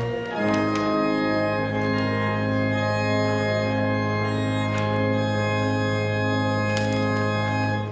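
Church organ holding a sustained chord over a low bass note, with one inner note repeating about twice a second, then released abruptly near the end: the close of the service prelude.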